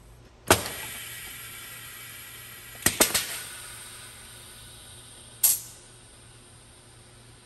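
Pneumatic valves and cylinders of a coaxial cartridge filling machine actuating during a fill. A sharp hiss of air about half a second in fades slowly, a double clack with more hissing comes near three seconds, and a shorter hiss follows about two and a half seconds later.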